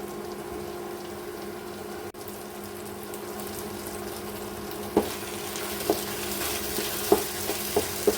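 Chicken Manchurian sizzling in a frying pan, a steady hiss. From about five seconds in, a spatula knocks against the pan several times as the dish is stirred, and the sizzle grows a little louder.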